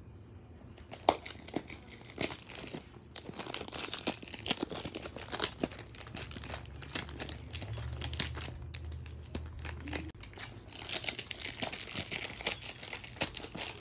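Hands handling and opening a cardboard toy box: packaging crinkling and tearing in quick, irregular crackles and rustles.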